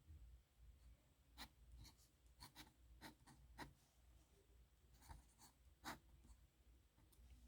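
Faint scratching of a metal dip-pen nib on paper: a series of short, separate pen strokes, the loudest about six seconds in.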